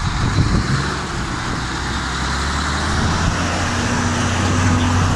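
Mercedes-Benz Actros 2544 truck's diesel engine running with a steady low drone; a higher tone joins in about three seconds in.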